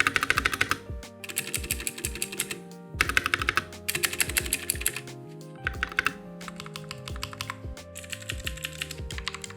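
Mechanical keyboard being typed on in fast runs of clicking keystrokes, about half a dozen bursts separated by short pauses.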